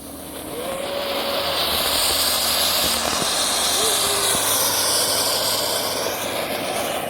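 A small firework, lit on the spot, hissing steadily as it sprays sparks. The hiss builds over the first second or two, holds, and eases slightly near the end.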